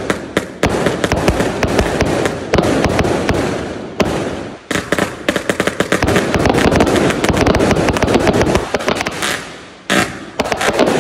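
A 278-shot fireworks cake of 0.8-inch tubes firing in rapid succession: launch thumps and bursting shells overlapping into a near-continuous barrage. It dips briefly twice, about four and a half seconds in and near the end.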